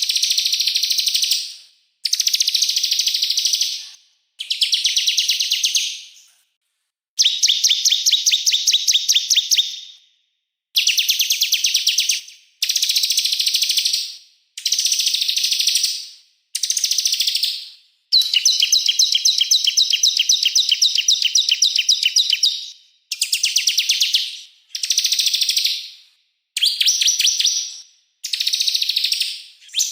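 A small songbird sings very fast, rattling high-pitched trills in bursts of about two seconds with short pauses between, with one longer unbroken run of about five seconds midway.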